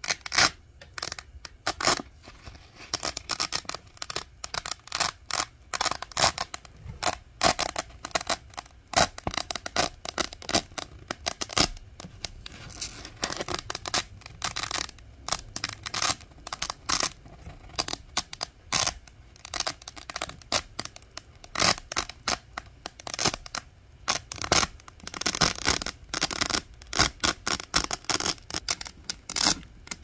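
Velcro hook-and-loop fastener being peeled apart slowly: a close, crisp crackle of many small ticks in quick runs, with short pauses between runs.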